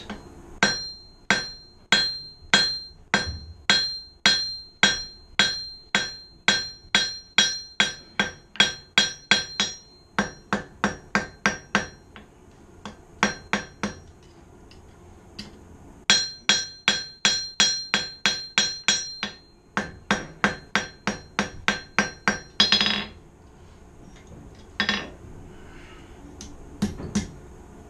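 Blacksmith's hand hammer striking hot 1/4 inch square steel bar on an anvil in fast runs of about three blows a second, each blow ringing; these are half-on, half-off blows flattening the mounting end of a J hook for its screw holes. The hammering breaks off for a few seconds midway, then a second run follows and a few single blows near the end.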